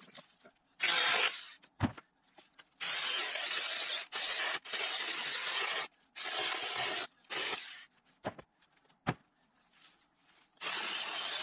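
Battery-powered Saker mini chainsaw cutting poplar branches in several bursts of one to three seconds, each starting and stopping sharply as the trigger is pulled and released. A few sharp knocks of wood come between the cuts.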